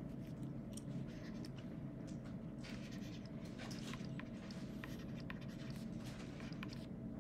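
A stylus writing on a tablet: short, irregular taps and scratches of the pen tip as the strokes are drawn, over a steady low hum.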